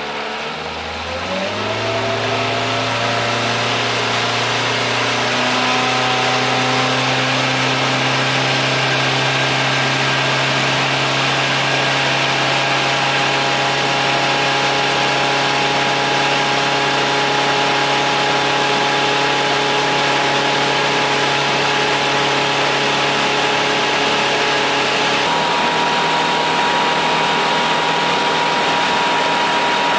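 A boat's outboard motor speeding up, its pitch rising over the first two seconds, then running steadily under way.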